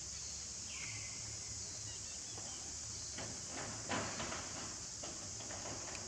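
Outdoor ambience: a steady high hiss, a short high chirp that drops in pitch about a second in, and a run of soft rustles and clicks around the middle.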